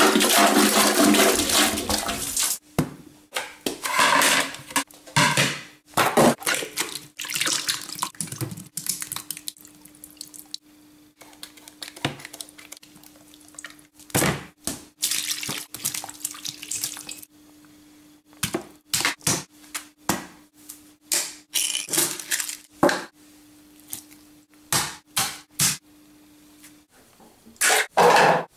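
Water splashing and rushing in a toilet bowl for the first couple of seconds, then a string of short knocks, clatters and handling noises over a faint steady hum.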